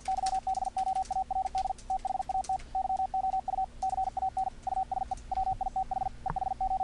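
Morse code sidetone from the ehoCW software CW keyer: a steady mid-pitched tone keyed rapidly in dits and dahs, with soft raised-cosine edges on each element. Faint clicks sound alongside the tone.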